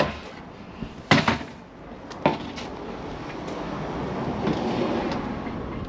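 A hollow plastic waste water tank knocks twice against a workbench as it is turned over, the first knock the louder. Then comes a longer scraping, rubbing sound of the plastic tank being handled.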